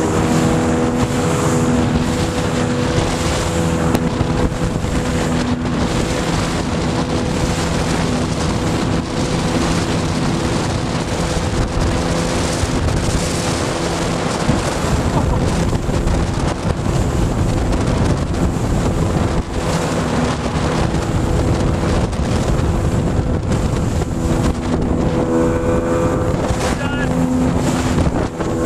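Motorboat engines running at speed, a steady drone that is strongest at the start and again near the end. Heavy wind buffets the microphone, and water rushes past the hull.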